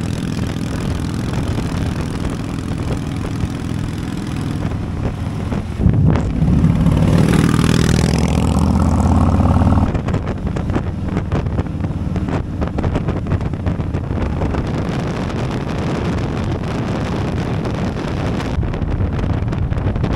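Harley-Davidson V-twin motorcycles running at highway speed, with heavy wind buffeting on the microphone. The sound gets louder for a few seconds in the middle, with a sweeping change in pitch.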